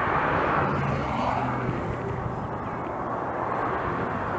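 Distant engine noise: a steady rushing sound with a low hum, swelling in the first second or so and again near the end.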